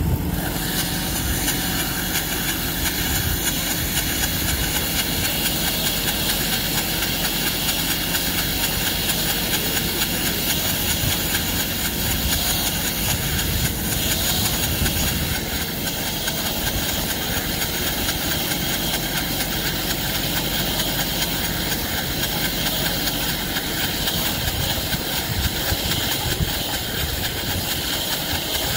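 Tractor engine running steadily, powering a Gallignani bale wrapper as it turns a round bale of grass and wraps it in plastic stretch film for silage, with a steady hiss over it.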